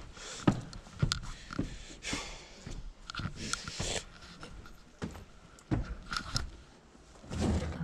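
Footsteps thudding up a flight of stairs, about two a second and unevenly spaced, with heavy panting breaths between them.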